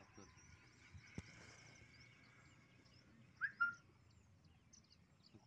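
Small birds chirping faintly and continuously, with a louder two-note bird call about three and a half seconds in. A single sharp click a little over a second in.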